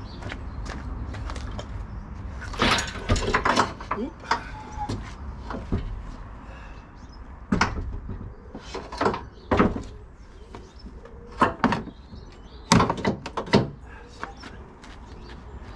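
Irregular clunks and knocks of metal parts and tools being handled during an engine installation, coming in several short clusters over a low steady rumble.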